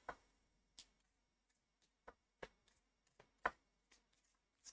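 Faint, scattered clicks and taps of cards being handled in the hands, about eight in all, the loudest about three and a half seconds in.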